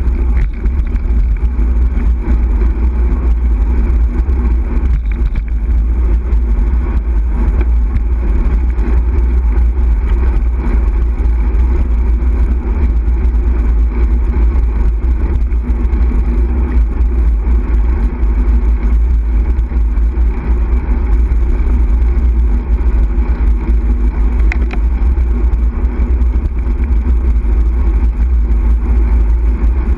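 Steady, loud wind rumble buffeting the microphone of a bicycle-mounted camera while riding on tarmac, mixed with road noise from the tyres.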